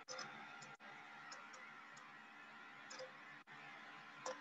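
Near silence with a few faint, light ticks of a stylus tapping on a tablet screen while handwriting, one slightly louder near the end.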